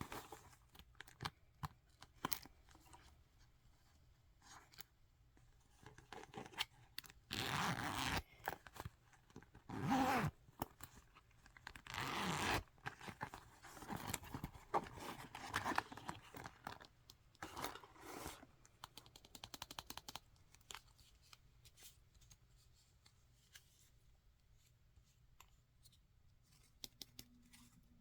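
Makeup packaging being handled and opened by hand: scattered taps and clicks, with several loud tearing or rustling strokes in the middle.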